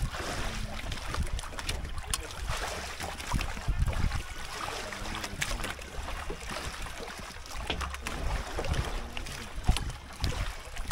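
Water sloshing and lapping against the hull of a wooden outrigger boat at sea, with wind rumbling on the microphone. A few small knocks sound here and there, and faint voices can be heard in the background.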